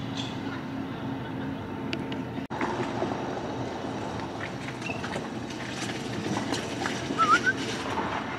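Outdoor waterside ambience: a steady low mechanical hum over even background noise, cut briefly about two and a half seconds in, with a few faint ticks and a short high warbling chirp near the end.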